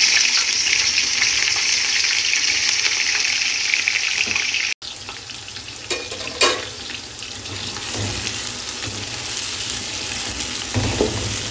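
Sliced red onions sizzling loudly as they hit hot oil in a metal pot. The sizzle cuts off abruptly about five seconds in and then carries on more quietly, with a couple of sharp knocks soon after.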